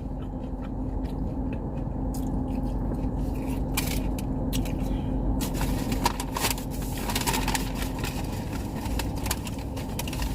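Paper fry bag crinkling and rustling with eating noises, in clusters of short crackles that are busiest through the middle, over a steady low hum.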